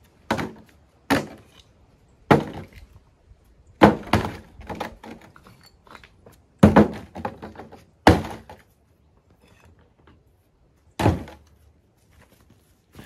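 Chunks of broken brick and stone being picked up by hand and dropped into a wheelbarrow, each landing with a hard clunk: about seven or eight irregular impacts, a second or more apart, with a longer pause before the last one.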